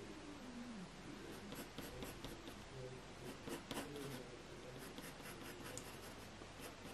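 Graphite pencil scratching across hot-press watercolour paper in quick, short, faint flicking strokes, drawing blades of grass.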